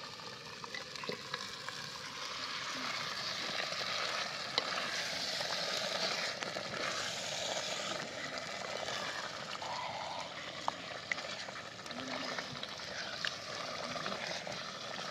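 Mutton pieces sizzling as they go into hot oil and fried masala in a clay pot, then stirred with a wooden spoon, with a few light knocks of the spoon on the pot. The sizzle is loudest a few seconds in.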